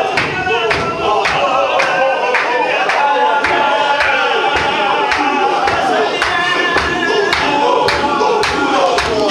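Chechen Sufi zikr: a large group of men chanting together in unison, their held, wavering lines carried over a steady beat of about two or three strikes a second.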